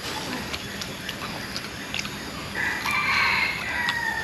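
A rooster crows once, starting a little past halfway and lasting about a second and a half, its call dipping lower at the end. Underneath, faint clicks of chewing meat off a grilled pork rib bone.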